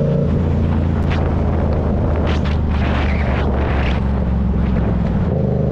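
Motorcycle engine running at a steady cruise, with wind rushing over the microphone and a few louder gusts of wind in the middle.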